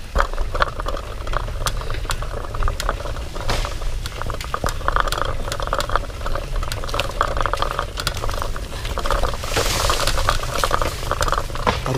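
Bicycle rattling over a rough road: a dense run of irregular clicks and crackle over a low rumble, growing busier and louder near the end.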